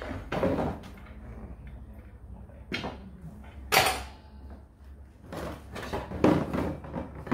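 A hard plastic carry case holding a hydraulic jack being handled: a string of separate clacks and knocks as the case is opened, the jack is set down on the floor and the lid is lifted and moved. The sharpest clack comes about four seconds in.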